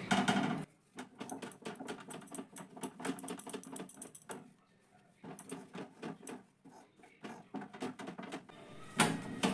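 Rolling pin rolling dough thin on a rolling board: a run of light, quick clicks and knocks as the pin goes back and forth, with short pauses.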